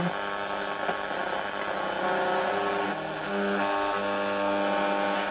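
Long-wave reception through a portable Eltra radio cassette recorder's small speaker, with heavy interference: steady droning hum and whistling tones. Some tones shift in pitch about two to three seconds in, and the broadcast itself is barely there under the interference.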